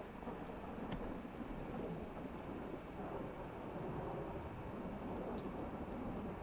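Recorded thunderstorm: steady rain falling with a low rolling rumble of thunder and scattered drips.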